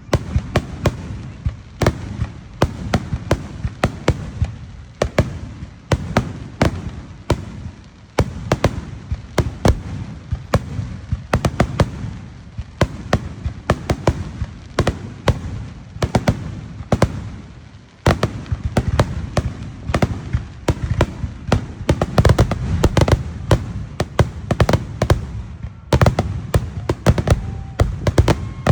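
Fireworks display: a rapid, unbroken run of bangs and sharp cracks over a low booming rumble. It is densest and loudest about three-quarters of the way through and eases briefly near the end.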